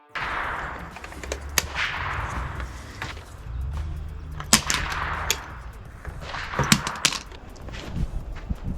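Several sharp bangs a second or more apart over a rushing background noise.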